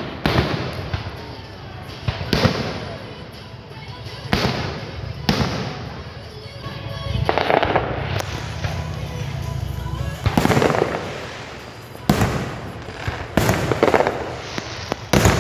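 Fireworks going off in a series of loud bangs, one every one to two seconds, each trailing off after the blast.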